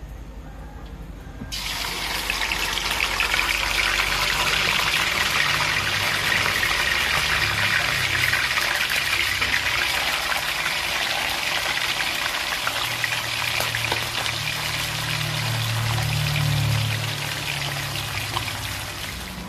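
Ikan mukus river fish frying in hot oil in a wok, a loud steady sizzle that starts suddenly about a second and a half in.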